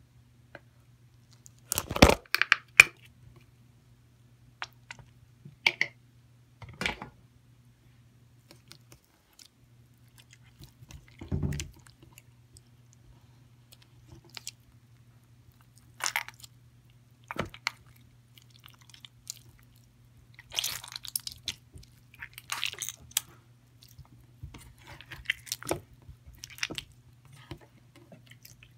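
Glossy slime being squeezed and kneaded by hand with white lotion worked into it: irregular wet squelches and sticky crackling pops, loudest about two seconds in.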